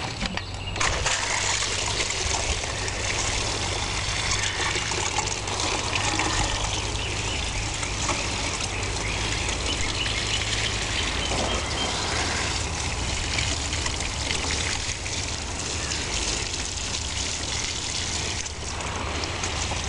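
Compost tea pouring from a plastic watering can onto beet leaves and soil: a steady splashing trickle.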